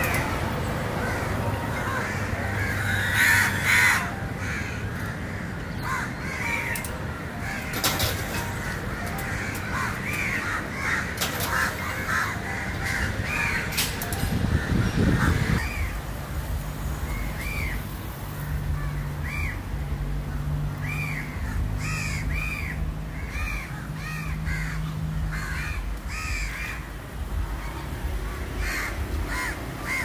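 Crows cawing over and over, many short harsh calls, some overlapping, against steady background noise.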